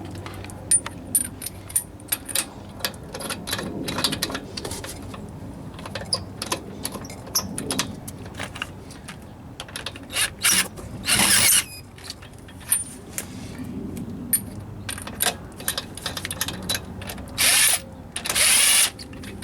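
Hand ratchet wrench clicking as lug nuts are run onto a car wheel, in irregular spells of ratcheting, with two louder, longer bursts about a third of the way in and near the end.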